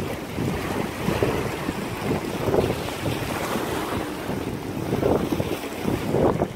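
Storm squall wind blasting the microphone in gusts, with a deep rumbling buffet that swells and eases every second or so.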